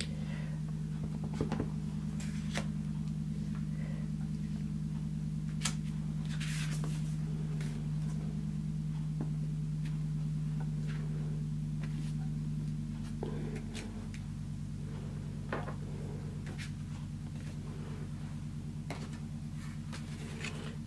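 A steady low mechanical hum, easing a little about two-thirds of the way through, with scattered light taps and rustles of card and paper being handled.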